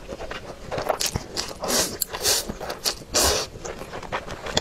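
Close-miked eating sounds: several short, hissy slurps of sauced instant noodles, with wet chewing and mouth clicks between them.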